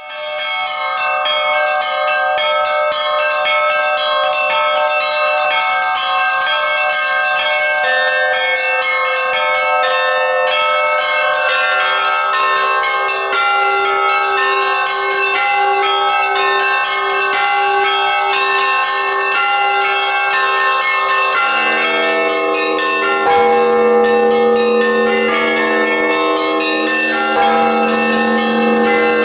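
Russian church bells rung in a rapid, continuous peal, with many small high bells chiming over one another. A lower bell joins about 12 seconds in, and a deeper one about 21 seconds in.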